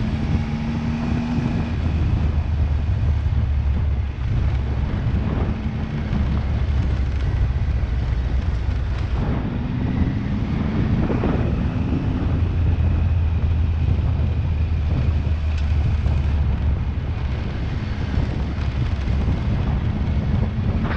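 Motorcycle engine running under way on a loose gravel road, with wind noise on the helmet-camera microphone. The engine note rises briefly a couple of times, near the start and about halfway through.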